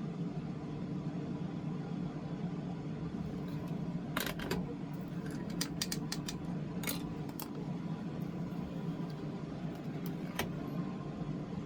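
Steady low background hum with a scatter of small sharp clicks and taps, a cluster about four to seven seconds in and one more near the end.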